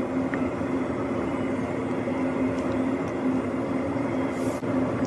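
Steady machine hum with a low droning tone, holding level without change.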